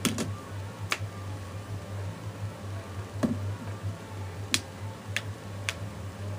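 Sharp plastic clicks and snaps, about six spread over several seconds, as a snap-on case is pressed onto a smartphone. A steady low hum runs underneath.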